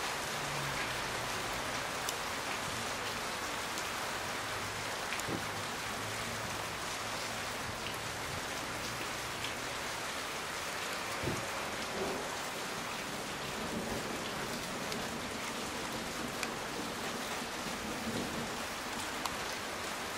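Steady rain falling, an even continuous hiss with a few sharper drop ticks here and there.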